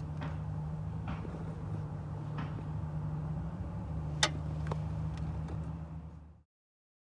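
A steady low hum with a few light clicks and knocks of metal parts or tools being handled, the loudest a sharp click about four seconds in. It cuts off suddenly about six and a half seconds in.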